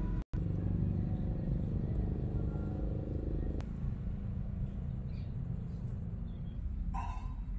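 Low, steady rumbling background noise with no clear single source. It changes character abruptly about three and a half seconds in, at a cut.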